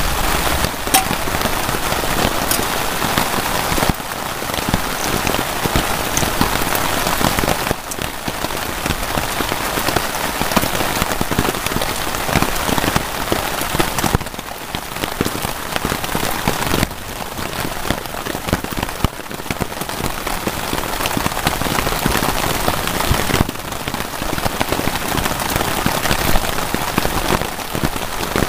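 Heavy rain falling steadily on a tarpaulin shelter, a dense even hiss of drops.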